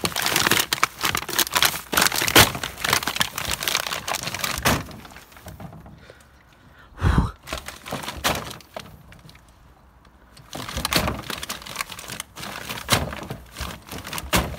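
Rubbish and plastic bags crinkling and crunching underfoot as they are stamped down inside a plastic wheelie bin, with one heavy thump about seven seconds in. The crackling eases off in the middle and picks up again near the end.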